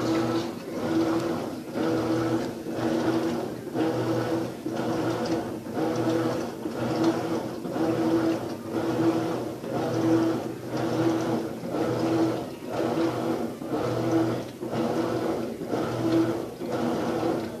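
Maytag top-load washing machine agitating during the rinse cycle: the motor hums and the sound swells and dips in a regular rhythm about once a second as the agitator swings back and forth.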